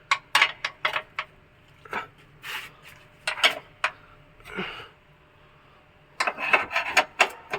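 Hand work on car parts: irregular clicks, knocks and rubbing in short clusters with pauses between them.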